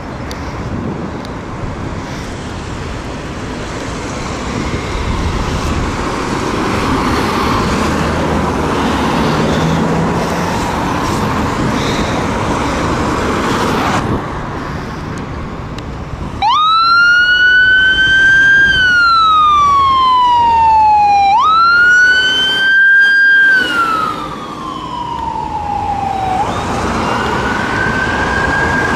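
Road traffic running, then about two-thirds of the way in a UK emergency vehicle's siren starts up loud on a slow wail, gliding up and down about every five seconds.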